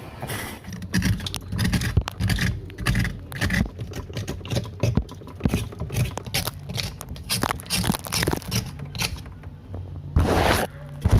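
Irregular scraping and knocking of hard objects against built-up ice in an iced-over fridge, with a longer, louder scrape about ten seconds in.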